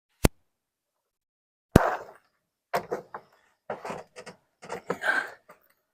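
Two sharp knocks about a second and a half apart, followed by a run of short, irregular clattering and rustling handling noises.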